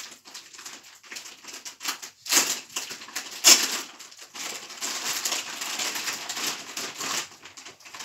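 Wrapping paper being torn and crumpled as a present is unwrapped: irregular crackling and rustling, with louder rips about two and a half and three and a half seconds in, then a longer stretch of rustling.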